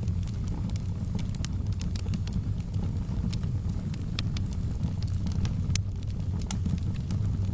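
Wood fire burning in a fireplace: a steady low rumble of the flames with frequent sharp crackles and pops. One pop about three-quarters of the way through is louder than the rest.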